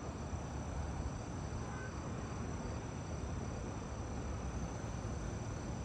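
Steady high-pitched insect chorus, an unbroken even tone, over the low rush of strong wind buffeting the microphone.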